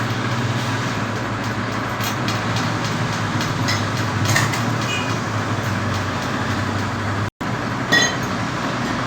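LST 100 motorcycle engine idling steadily through a replacement exhaust elbow and muffler. It drops out for a moment about seven seconds in.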